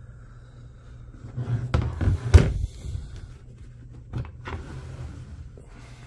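Plastic case of a screwdriver bit kit being handled, set down and opened: a cluster of knocks and rattles about two seconds in, the loudest a sharp knock, then one more knock about four seconds in, over a low steady hum.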